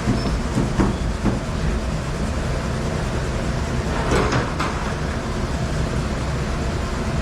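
Commercial dishwasher running with a steady rumble and hum, with a few short clinks or knocks about a second in and again around four seconds in.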